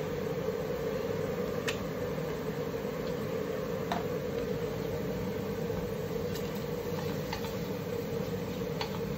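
Butter-and-flour roux cooking in a sauté pan over a gas burner, browning for a brown sauce: a steady hiss and hum with a few faint pops and clicks.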